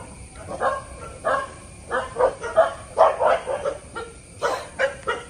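A dog barking and yipping in short calls, about ten of them in uneven bursts.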